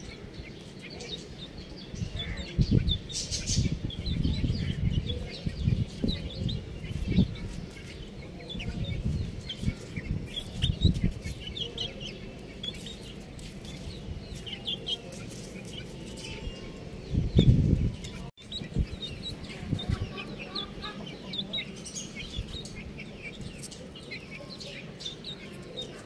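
Young chicks peeping: a steady stream of many short, high chirps, with several low, dull thumps in the first half and a louder one near the two-thirds mark.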